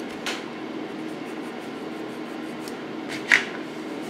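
Two short scrapes of a needle file on a soldered lead figure, the second louder, about three seconds in, over the steady hum of a fan.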